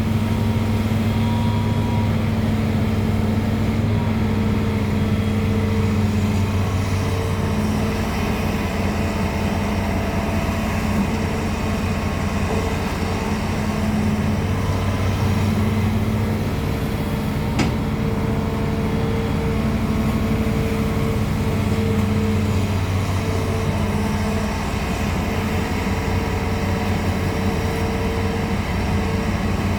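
Hitachi Zaxis 210F excavator's diesel engine running steadily under working load while digging a ditch, its hum wavering slightly. A single sharp click about two-thirds of the way through.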